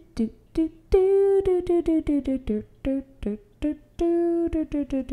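A woman humming a tune in short, separate notes.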